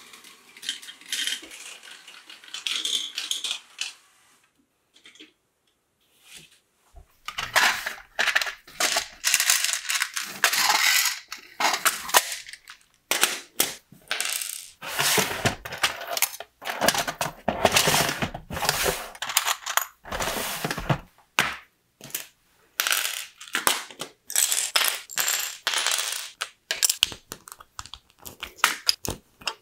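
Small plastic LEGO pieces clattering and rattling as they are raked through and picked out of plastic sorting trays, in irregular bursts of sharp clicks, after a brief quiet gap about five seconds in. Near the end come small clicks of LEGO plates being pressed together.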